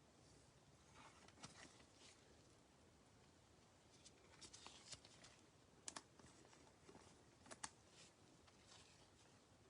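Near silence, with scattered faint ticks and rustles of trading cards being handled and slid into card holders.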